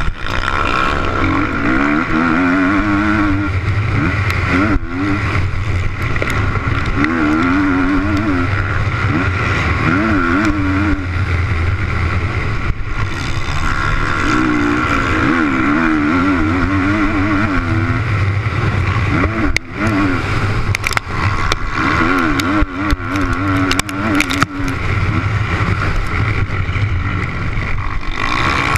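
Motocross bike engine heard from onboard, revving up and dropping back again and again as the rider accelerates out of and shuts off into corners. A few sharp knocks come about two-thirds of the way through.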